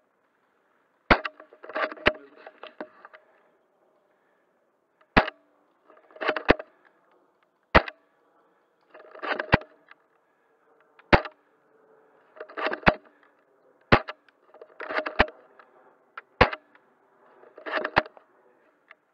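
Airsoft gunfire: about a dozen sharp single shots about one to two seconds apart, most with a short clatter of smaller clicks around them.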